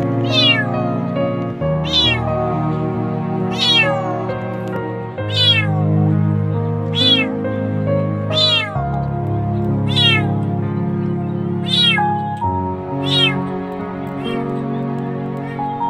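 Kitten meowing loudly and over and over, about ten high calls a second or two apart, each one falling in pitch.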